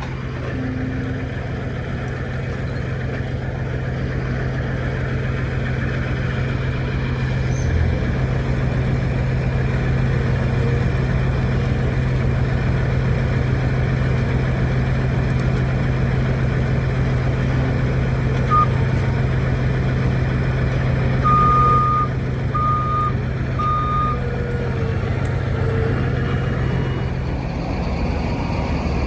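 Heavy engine running steadily throughout, with a reversing alarm beeping a few times in the last third.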